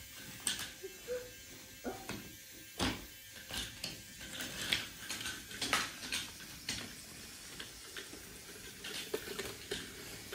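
Small battery-powered motor of a wooden toy train whirring as it runs, with irregular clicks and clacks of wooden pieces on the track.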